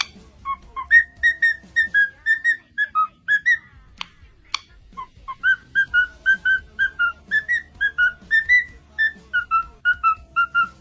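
Cockatiel whistling a tune: a long run of short, clear whistled notes, several a second, with a couple of sharp clicks about four seconds in.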